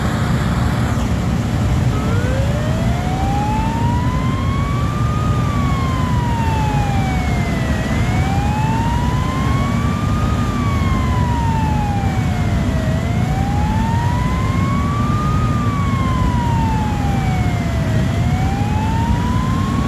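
A siren wailing slowly up and down, about one rise and fall every five seconds, starting about two seconds in, over a steady low rumble.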